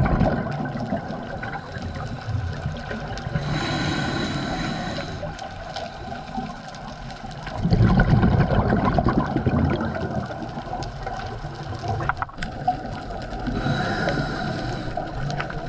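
Scuba diver breathing through a regulator underwater: two hissing inhalations, about four seconds in and near the end, and bubbly exhalations at the start and about eight seconds in.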